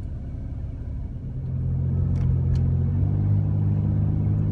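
A van's engine pulling away from a stop, heard from inside the cabin: it swells about a second in and steps up to a higher, steady hum about three seconds in. Two faint clicks come partway through.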